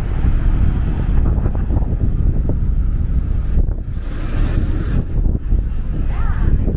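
Wind buffeting the microphone, a loud, gusty low rumble, over city street traffic noise.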